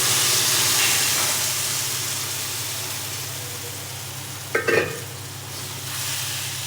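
Gram-flour buttermilk hitting hot fried onions and masala in the pan and sizzling, loud at first and slowly dying down. A spoon clatters against the pan just before five seconds in. A steady low hum runs underneath.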